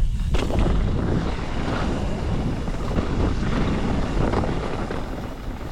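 Wind rushing over a helmet- or chest-mounted GoPro's microphone as a mountain bike descends a rocky downhill trail at speed, with the low rumble of the tyres on dirt and rock and scattered light knocks from the bike over rocks.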